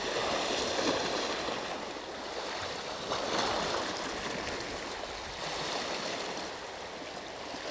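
Sea water lapping and washing against a rocky shore, swelling and easing every few seconds.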